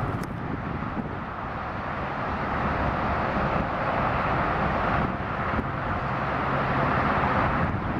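Boeing 777-200 airliner's GE90 jet engines on final approach: a steady jet roar that grows gradually louder as the aircraft nears, with a brief dip about five seconds in.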